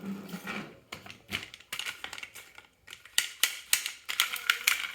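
Marbles clicking and clattering as they roll down a wooden marble run. A few scattered clicks come first, then a quick, dense run of loud clacks in the second half.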